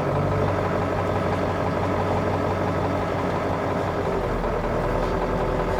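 1995 Ford F350's 7.3 L Powerstroke V8 turbo-diesel idling steadily, with a little whine from the power steering that the owner thinks may just be low fluid. The engine note shifts slightly about four seconds in.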